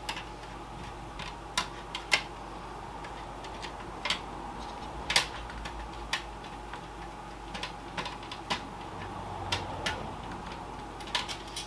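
Irregular small clicks and taps of screws and a screwdriver being tried in an SSD mounting in a PC case, the screws not fitting, over a steady hum.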